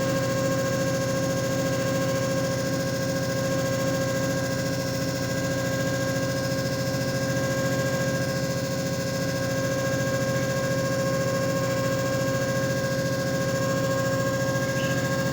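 JFJ Easy Pro disc repair machine running steadily, its motor giving an even hum with a steady whine over it.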